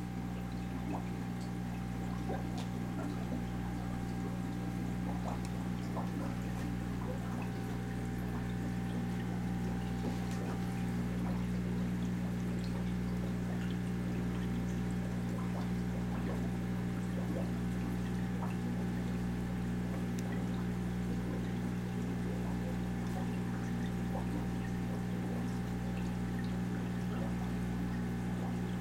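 Aquarium filtration running: a steady low electrical hum from the pump with water trickling and pouring into the tank, unchanging throughout, with a few faint ticks.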